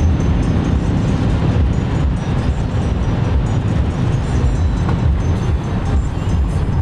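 Cabin noise of a BMW E39 540i at speed: its V8 engine with road and tyre noise, a loud, steady, deep rumble.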